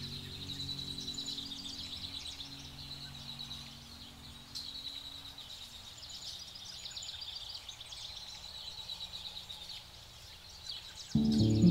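Small birds chirping and trilling in a steady high chorus, with soft, sustained low music notes fading out in the first few seconds. Loud music cuts in abruptly just before the end.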